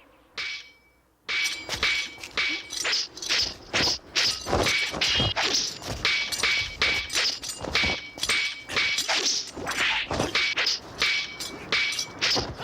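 Fight sound effects from a martial-arts drama: rapid swishes of swung blades or weapons and quick hits, many with a short metallic ring. After a brief pause about a second in, they come several times a second, without a break.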